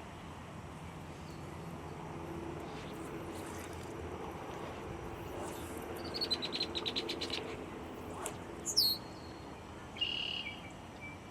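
Wild birds calling: a rapid trill of high notes about six seconds in, a sharp falling call near nine seconds, and a short high call near the end, over a faint steady low hum.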